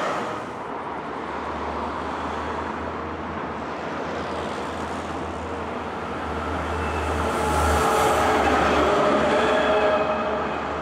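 Adtranz Class R2 low-floor tram approaching and passing close by, its running noise building to loudest between about seven and ten seconds in, with steady tones over the rumble of the wheels.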